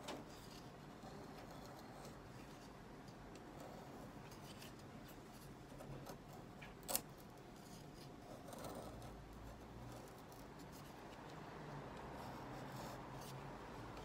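Knife blade shaving thin curls off a wooden stick, soft repeated scraping strokes as a feather stick is carved for kindling. One sharp click about seven seconds in.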